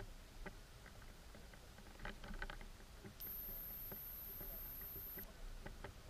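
Faint underwater ambience with scattered small clicks and ticks, a quick cluster of them about two seconds in, and a thin, high steady whine from about three seconds in that stops near five seconds.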